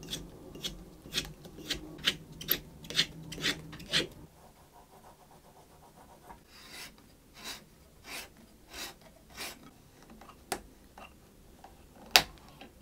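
Ebony violin peg being shaved in a peg shaper, scraping in quick strokes about two a second for the first four seconds. Then a peg-hole reamer scrapes through the wooden pegbox in softer, slower strokes. Two sharp clicks follow near the end, the last one the loudest.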